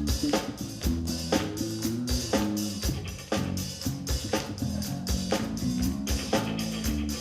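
Live music: a steady dance beat of drum hits about twice a second under a repeating bass line, the instrumental intro of a pop song before any singing.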